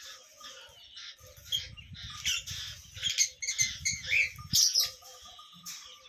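Small parrots in an aviary chirping and squawking: many short, sharp calls that overlap, busiest in the middle few seconds, over a low rumble.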